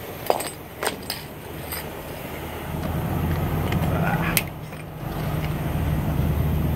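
Sharp metal clinks and clanks from handling a fuel delivery hose's cam-lock coupling at an underground tank's fill pipe, several in the first two seconds and one more at about four seconds. A low steady engine drone comes up about three seconds in.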